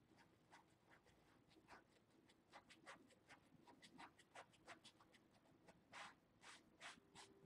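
Faint, quick scratchy strokes of a fine paintbrush dabbing and dragging on canvas, a few strokes a second in an uneven rhythm, a little louder about six seconds in.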